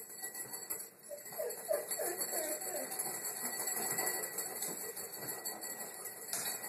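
Puppies eating dry food from ceramic plates: a steady patter of small clicks and clinks as teeth and kibble knock and scrape against the plates, with a few short high squeaks about a second and a half in.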